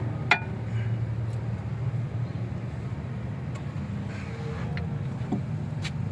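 A sharp, ringing metallic clink of tools or brake parts about a third of a second in, then a few lighter taps, over a steady low hum.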